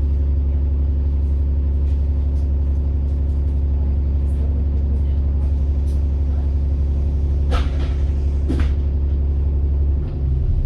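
A First South Yorkshire single-deck bus's diesel engine running at a steady pitch with a low drone, heard on board. Two short hisses of compressed air come about a second apart near the end, and the engine note shifts just after.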